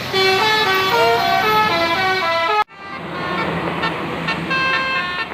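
Telolet bus horn, a multi-tone electric air horn, playing a quick stepped melody of short notes. About halfway through it cuts off abruptly, and the horn sounds again in longer held tones over steady background noise with a low engine-like hum.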